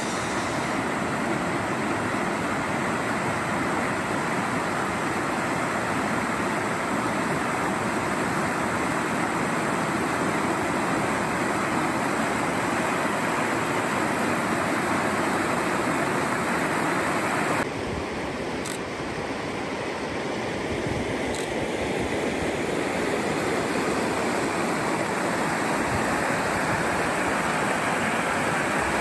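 Steady rush of a stream's flowing water. About eighteen seconds in it changes abruptly to a slightly quieter, softer rush.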